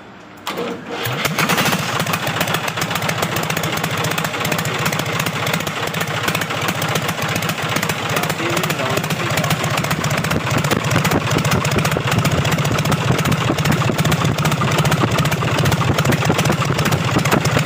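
Freshly rebuilt 855 tractor diesel engine being started: it catches about a second in and then runs steadily with a fast, even beat.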